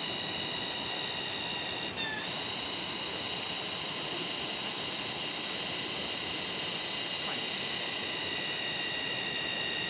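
Waterfall's rushing water, a steady even noise, with a steady high-pitched whine over it. There is a brief break about two seconds in.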